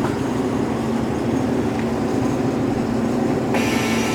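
Dixie Narco 276 vending machine running with a steady hum; about three and a half seconds in, its new bill acceptor whirs for about a second as it draws in a dollar bill.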